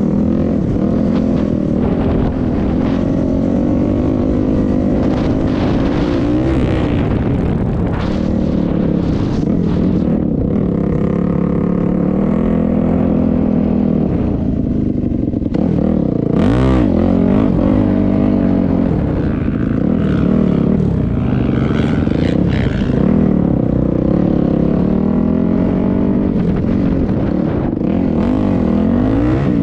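A vehicle's engine running continuously on the move, its pitch rising and falling as the speed and throttle change, with a brief quick change about halfway through.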